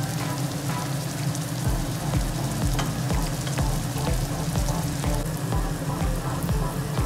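Onion, tomato and green chilli masala sizzling and crackling in hot oil in a pot, under background music; a steady low beat of about two a second comes in about two seconds in.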